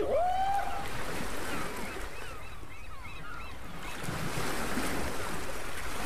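A flock of birds calling over the sea, many short chirping calls, with one longer rising call in the first second, over steady surf and wind.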